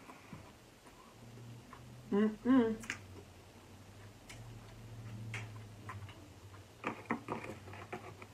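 Mouth sounds of someone eating crab: two short closed-mouth 'mmm' hums of enjoyment about two seconds in, then a quick run of wet lip smacks and clicks near the end, over a faint low hum.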